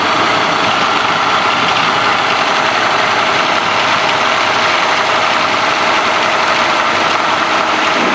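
Cessna 210D's six-cylinder piston engine and propeller running steadily at low power as the plane rolls out along the runway after landing.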